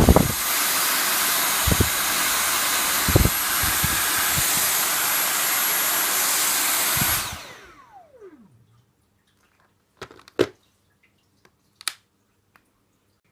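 Dyson V8 Absolute cordless stick vacuum running at max suction: a loud, steady rush of air with a high whine. About seven seconds in it is switched off and the motor winds down with a falling whine, followed by a few clicks.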